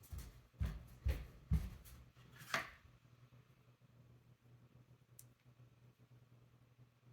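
Handling sounds of a phone and its packaging: about five knocks and clicks in the first three seconds, some with a dull thud, then only a low steady hum and one faint click about five seconds in.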